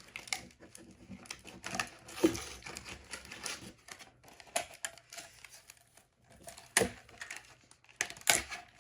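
Retail packaging being handled and pulled open by hand: crinkling and tearing with irregular clicks and knocks, the sharpest ones near the end.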